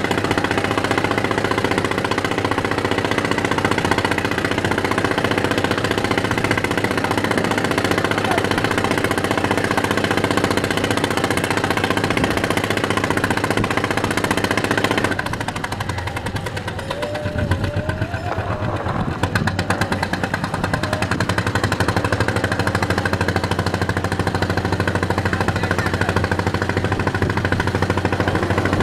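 Boat diesel engine running with a steady, rapid pounding beat. It dips for a few seconds past the middle, then returns to its earlier level.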